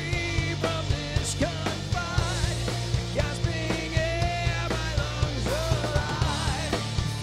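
Groove metal band playing live: amplified rock music with a drum kit keeping a steady beat under held and bending pitched lines.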